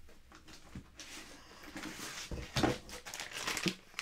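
Irregular rustling of plastic bags and light knocks of hard plastic CGC slabs being handled, loudest a little past halfway.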